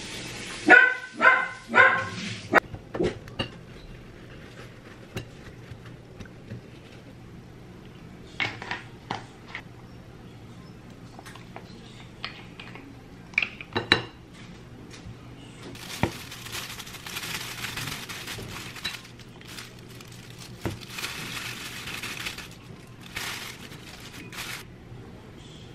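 A dachshund barks three times in quick succession near the start. Then come scattered clinks and knocks of a ceramic plate and small items on a stone countertop, and later two stretches of rustling.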